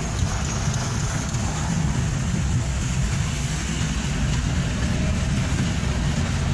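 Steady low rumble of a moving vehicle's engine and road noise, heard from inside the cabin.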